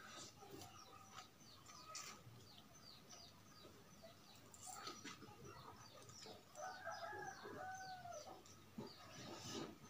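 Faint chickens clucking, loudest about seven seconds in, over small birds chirping throughout, with a few soft slurps of noodles.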